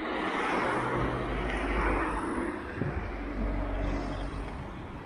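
A car driving past close by: tyre noise and engine rumble swell to a peak about two seconds in, then fade as it moves away down the road.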